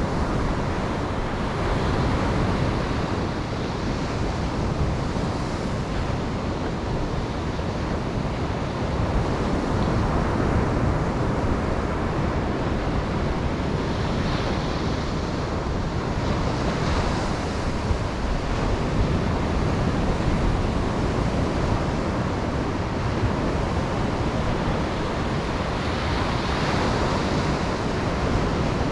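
Ocean waves breaking and washing on a beach, a continuous surf rush that swells gently every few seconds, with a wind-like low rumble underneath.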